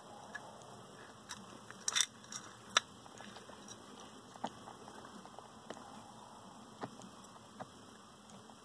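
Land hermit crabs' shells clicking and tapping against one another and against a seashell food dish as the crabs clamber over each other, with faint scrabbling of legs. The taps are irregular and sparse, the loudest a quick cluster about two seconds in and a single sharp knock shortly after.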